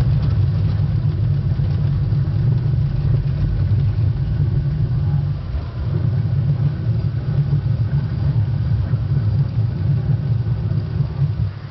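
Test Track ride vehicle driving over the rough-road test section: a steady low rumble from the car and its wheels on the uneven surface, dipping briefly about five and a half seconds in.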